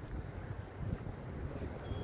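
Wind buffeting the microphone: an uneven low rumble, with a brief high chirp near the end.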